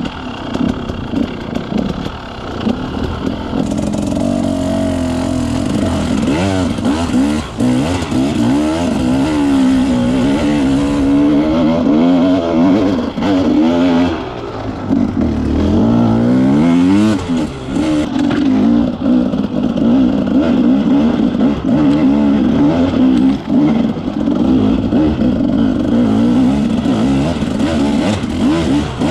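Off-road motorcycle engine heard close from the rider's own bike, its pitch rising and falling over and over as the throttle is opened and closed.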